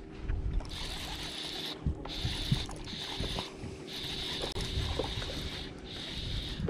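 Baitcasting reel being cranked in about five short bursts with brief pauses between them, its gears whirring. A couple of dull knocks come around two seconds in.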